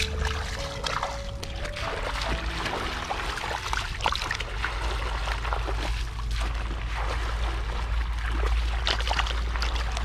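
Shallow water splashing and trickling in short, irregular bursts, over background music.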